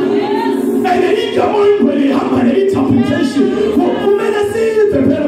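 Unaccompanied singing: a man sings into a microphone, with other voices joining in.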